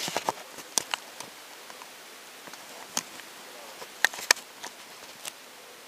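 Scattered sharp clicks and knocks, about half a dozen, over a faint steady hiss; the loudest is a close pair about four seconds in.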